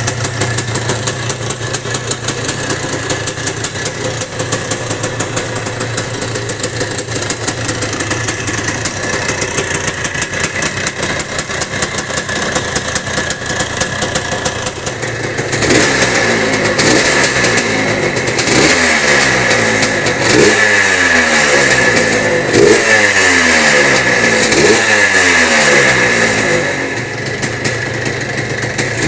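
Bultaco Pursang's two-stroke single-cylinder engine running steadily at idle, then, from about halfway, revved again and again with the throttle, each rev falling back toward idle.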